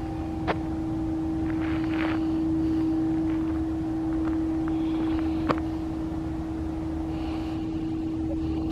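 Outdoor street sound: a steady engine hum with a low traffic rumble, broken by two sharp clicks, one about half a second in and one about five and a half seconds in.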